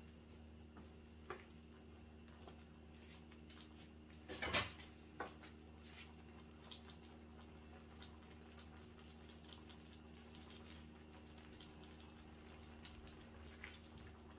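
A cooking spoon stirring beans in a frying pan, with small scattered clicks and scrapes. The utensil clatters against the pan about four and a half seconds in, with a second knock just after. A low steady hum runs underneath.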